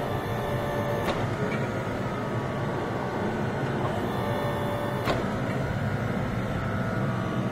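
Steady mechanical running noise from a forge and the converted 8-ton log-splitter forging press, whose 3-horsepower electric motor drives its hydraulic pump. Two sharp clicks stand out, about a second in and about five seconds in.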